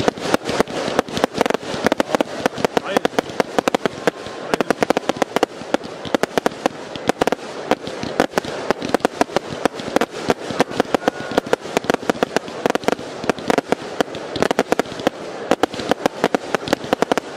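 Fireworks display going off in a dense, unbroken barrage, many bangs and crackles a second, as several rising shells and bursts fire at once.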